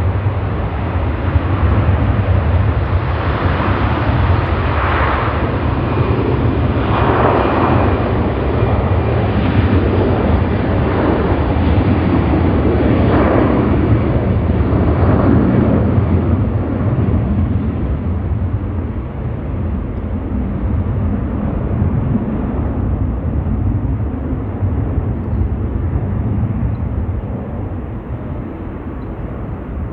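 Delta Boeing 757-300 jet departing at takeoff power: a loud, continuous twin-jet rumble that swells and surges over the first half, then slowly fades as the aircraft moves away.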